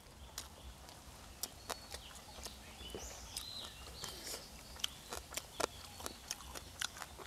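Close-up chewing of stir-fried frog, its small bones crunching in many sharp, irregular clicks.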